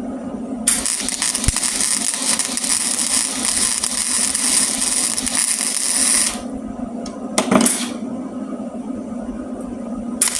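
Welding arc crackling and hissing in a run of about five seconds that starts under a second in, then a short burst, then another weld starting at the very end. A steady low hum runs underneath throughout.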